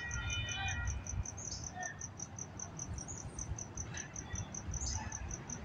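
Electronic railroad-crossing warning bell ringing at the lowered gates: short, high, even pings about five times a second. A held chord of several high tones stops about a second in.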